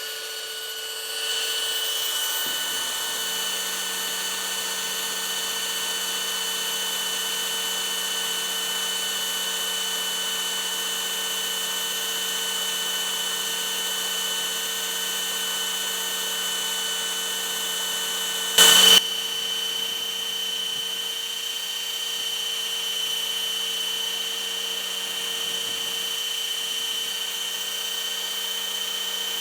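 Small Skil electric sander running steadily with a motor whine, sanding the ferrule off the end of a graphite golf shaft. A brief louder burst of noise comes about two-thirds of the way through.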